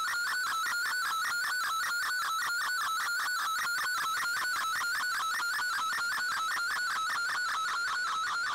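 Shortwave digital picture transmission in MFSK image mode, received on an Icom IC-R8600: a steady, wavering data tone pulsing in a fast, even rhythm, with fainter higher tones above it, as an image is sent.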